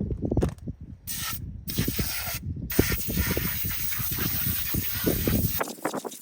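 Pressure washer spraying: a hissing jet over the rumble of the machine. The spray breaks off twice briefly in the first couple of seconds, then runs on and cuts off suddenly near the end.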